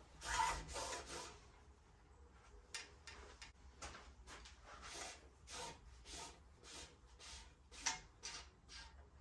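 Soft rubbing and scraping handling noises at a bicycle frame: a fingertip pushing foam into the down tube, then the rear brake hose sliding and rubbing as it is pulled back out through the frame's internal routing. The noises come in short irregular strokes, louder about a second in and again near the end.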